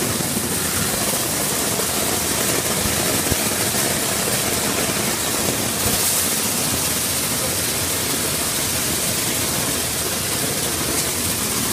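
Bean color sorter running, a steady mechanical noise with red beans streaming down its feed chutes and no breaks or changes.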